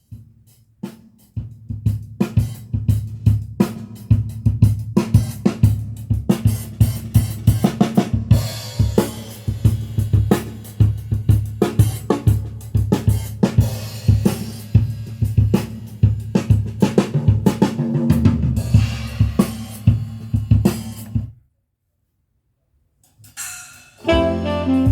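Recorded music led by a drum kit, with snare, bass drum, hi-hat and cymbals over a bass line, played back through a hi-fi power amplifier and speakers. It stops suddenly about 21 seconds in. After a short pause, another track begins near the end with sustained pitched notes.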